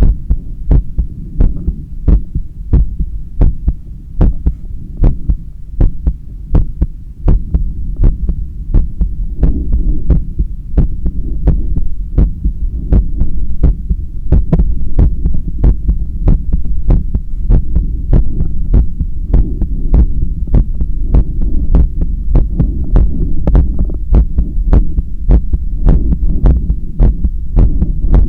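A human heartbeat heard through a stethoscope pressed to the chest during resistance-band bicep curls: regular, rapid thumps over a steady low rumble.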